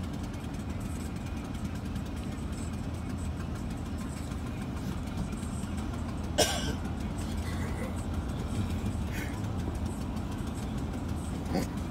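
Jumping jack tamper's small engine idling steadily with a low hum while the rammer stands still. A short sharp sound cuts through about six seconds in.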